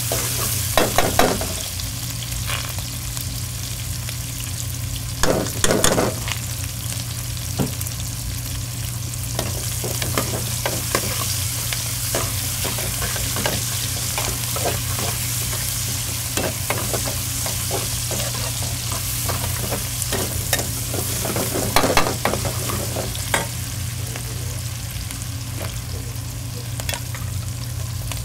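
Lobster stir-frying in a wok: a steady sizzle over a low hum, with a metal utensil clanking against the wok in short clusters about a second in, around six seconds and around twenty-two seconds.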